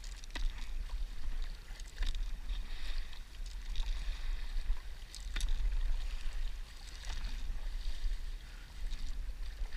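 Stand-up paddleboard moving through calm sea: paddle strokes splashing about every one and a half to two seconds over water hissing along the board, with a steady low wind rumble on the microphone.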